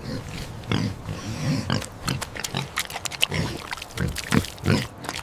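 Pig grunting, a rapid, irregular series of short grunts.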